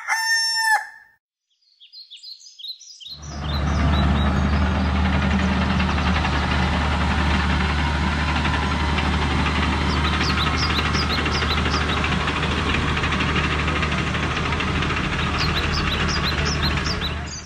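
A rooster crow ends within the first second. From about three seconds in, a crawler bulldozer's engine runs in a steady drone until just before the end. Small birds chirp over it about ten seconds in and again near the end.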